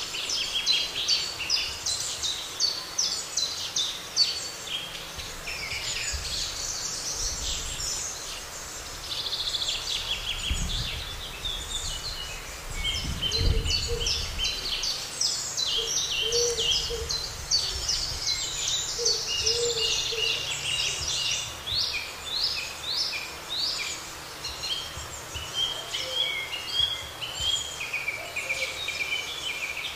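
Several songbirds singing together, a dense chorus of rapid chirps and trills with a few lower notes mixed in. A low rumble swells and fades about halfway through.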